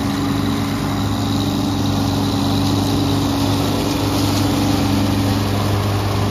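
A compact lawn tractor and the Cyclone Rake tow-behind leaf vacuum it pulls, whose own engine drives the vacuum, running steadily as the rig drives past. The engine sound swells slightly as it comes closest and eases a little near the end.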